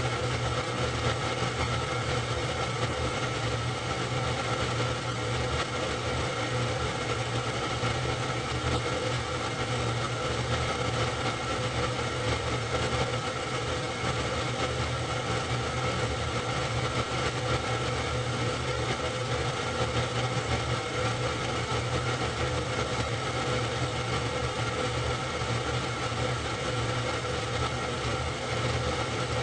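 Super 8 film projector running: a steady motor hum and mechanical whir with a constant low drone, unchanged throughout.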